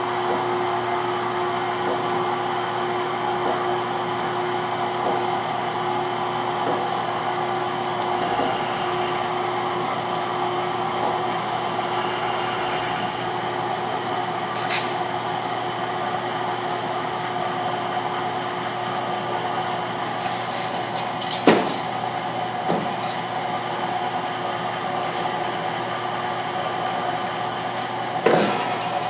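An Aeroquip reusable-fitting hose assembly machine runs in reverse, its belt-driven motor spinning a rusty reusable fitting off a hydraulic hose with a steady hum. Two short sharp knocks come late on.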